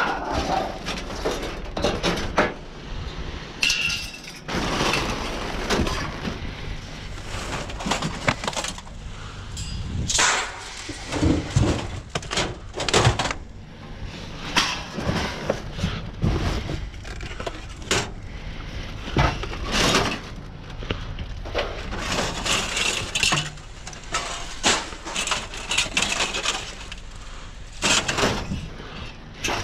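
Debris being rummaged through in a steel dumpster: thin galvanized sheet-metal ductwork and cardboard shifted and tossed about, giving irregular clanks, clatters and crinkling scrapes.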